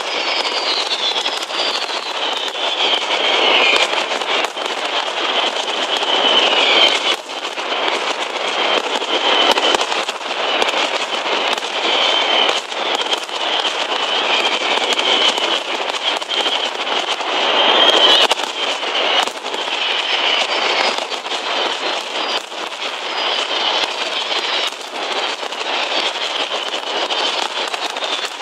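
Mascletà barrage of firecrackers (masclets): a continuous dense crackle of explosions with sharp louder bangs throughout and high whistles gliding downward, loudest about seven and eighteen seconds in.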